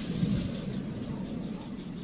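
Low, steady rumbling background noise with a faint hiss above it and a small swell a fraction of a second in.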